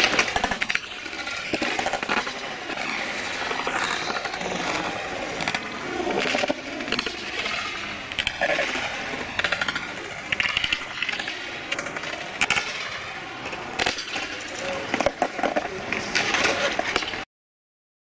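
Skateboard wheels rolling on concrete, with boards repeatedly clacking and knocking down, and people talking in the background. The sound cuts off abruptly about a second before the end.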